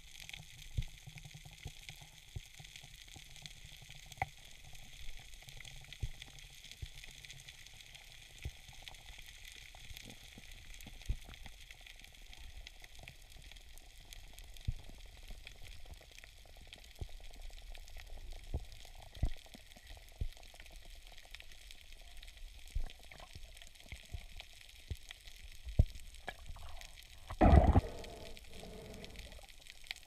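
Underwater reef ambience heard through a camera's waterproof housing: a steady hiss with scattered crackling clicks from snapping shrimp. A louder thump comes near the end.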